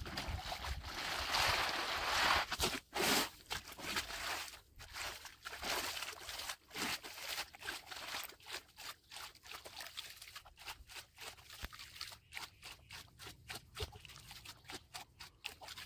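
A plastic gold pan being shaken and swirled under shallow stream water, sloshing water in and out over its load of sand and gravel. It is a run of quick, irregular swishes, fuller for the first few seconds. This is the washing stage of gold panning, where the light material is cleared off to leave any heavy material behind.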